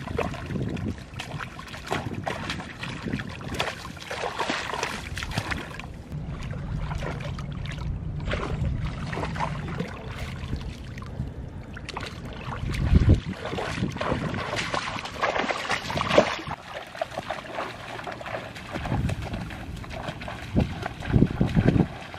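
Shallow muddy marsh water splashing and sloshing as people wade and reach into it by hand, with uneven strokes and a couple of louder splashes around the middle.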